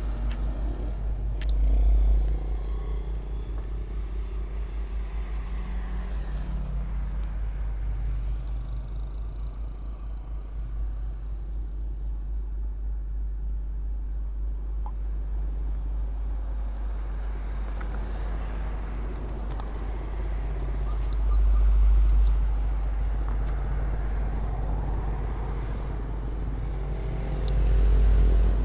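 Motorcycle engine idling steadily with an even fast pulse. Two louder swells of passing traffic come about two thirds of the way through and again near the end, the last as another motorcycle comes by.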